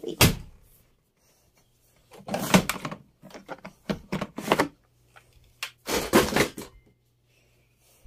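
Plastic detergent dispenser drawer of an Electrolux front-loading washing machine being handled: four bursts of plastic sliding and clattering, with a faint low hum under the second half.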